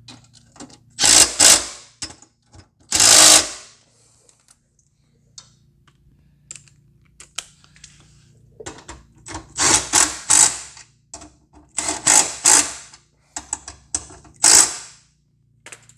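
Cordless power ratchet running bolts into a bumper mounting bracket on a truck frame, in short whirring spurts of under a second each: two early on, then a quicker run of them in the second half.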